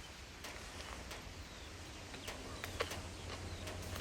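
Faint outdoor ambience: a few short bird chirps and scattered light clicks over a steady low hum, with one louder click nearly three seconds in.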